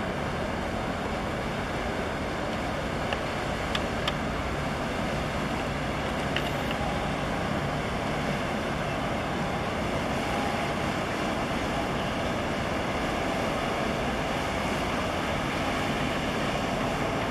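Steady low rumble of a harbour tug's diesel engine as the tug passes close by, over a constant wash of water and wind noise. Two faint ticks come about four seconds in.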